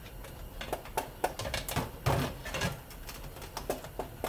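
A string of short metallic clicks and knocks as thin tin sheet-metal casing is cut and bent with snips, the louder snaps coming between about one and three seconds in.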